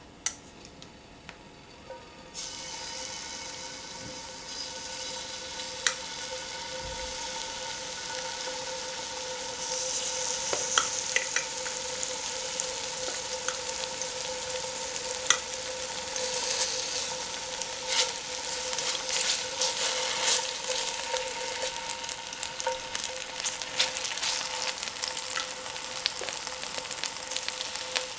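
Chicken breast cubes sizzling in hot oil in a wok as pieces are added one by one; the sizzle gets louder in steps, about two and a half seconds in and again near ten seconds, with sharp crackling pops throughout. A faint steady tone runs underneath.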